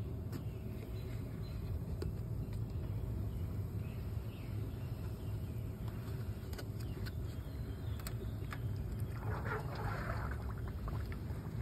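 Steady low background rumble with a few faint clicks. About nine seconds in comes a brief rough scraping and crunching as the softening styrofoam cup is pushed down against the foil pan.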